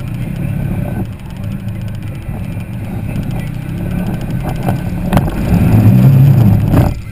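Polaris RZR XP side-by-side's engine running as it drives along, growing louder under more throttle in the last couple of seconds, with a sharp knock about five seconds in.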